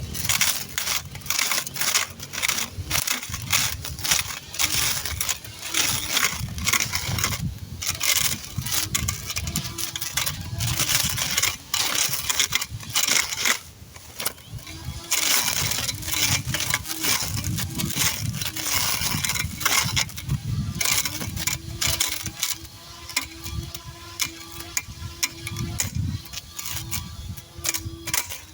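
Electric cutter's motor running as it cuts through weeds and brush, with a dense, irregular crackle of stems striking the blade. A steady motor hum sits under it in the second half.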